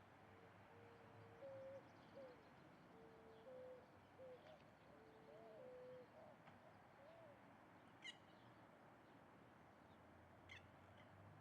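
Faint birdsong: a bird gives a run of low hooting notes, some held level and some bending up and down, for about seven seconds, then two short high chirps follow a couple of seconds apart.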